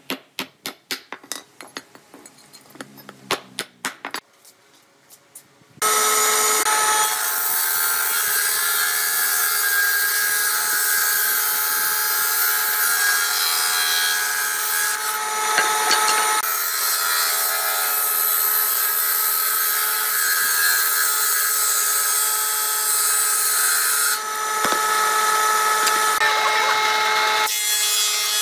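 Irregular sharp taps of a metal bar on a wooden block for the first few seconds. From about six seconds in, a combination jointer-planer runs loudly with a steady whine of several tones, its cutter head planing wooden boards, the noise shifting as the boards feed through.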